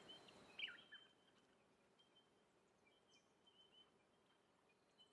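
Near silence, with a few faint bird chirps in the first second and only scattered faint chirps after.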